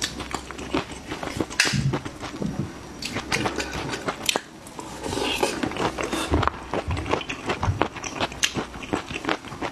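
Close-miked wet biting and chewing of raw shrimp coated in chili-oil sauce, full of sharp, irregular crunchy clicks and mouth smacks.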